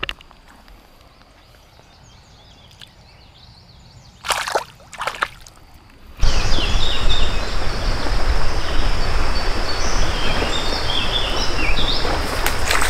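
Fairly quiet creekside air with faint bird chirps and two short noises about four and five seconds in. About six seconds in it changes suddenly to a loud, steady rushing noise of flooded creek water and wind on the microphone, with birds chirping over it.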